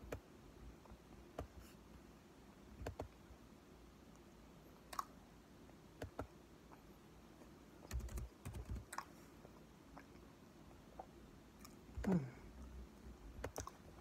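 A mouthful of cornstarch being chewed: faint, scattered clicks and crunches at irregular intervals, with a short falling vocal sound near the end.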